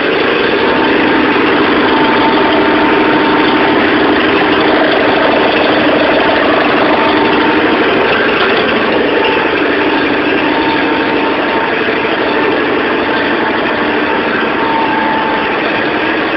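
A 1986 John Deere 318 garden tractor's Onan flat-twin engine running smoothly at a steady speed.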